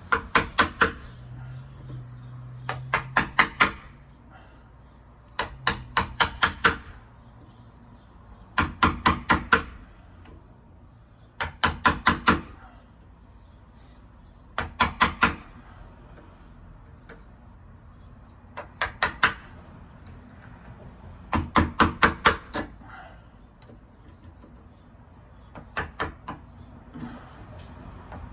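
Hammer tapping a chisel to square off a round-cornered latch mortise in a wooden door edge, so that a square dead latch faceplate sits flat. The taps come in about ten quick bursts of three to six strikes, a few seconds apart.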